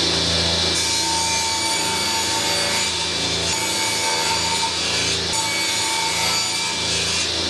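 Table saw running at full speed with a steady high whine, its blade sawing through a board pushed across the table.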